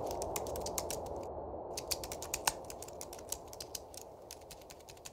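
Rapid, irregular keyboard-typing clicks, with a short pause about a second and a half in. They run over a low rumble that slowly fades away.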